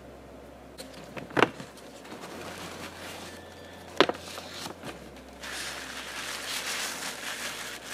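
Two sharp knocks as items are set down and taken from a box, then from about two thirds of the way in a continuous rustling and crinkling of tissue paper as a wrapped item is handled.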